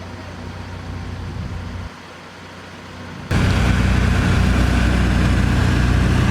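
Heavy engine of road-works machinery running steadily. The sound cuts abruptly about two seconds in, then comes back much louder and closer just after three seconds.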